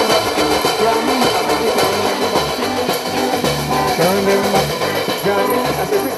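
Live band playing a traditional song, with a plucked electric bass line and electric guitars to the fore and a steady rhythm.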